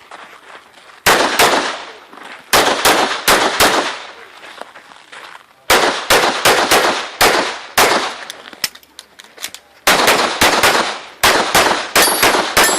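Pistol shots fired rapidly during a practical shooting stage: about twenty sharp shots in quick pairs and strings, with short pauses between the groups and a brief echo after each.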